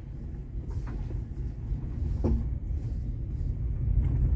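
Low rumble inside a Mazda 5's cabin as it drives over a rough gravel road, tyre and road noise growing louder, with a few sharp knocks from the car, the loudest about two seconds in.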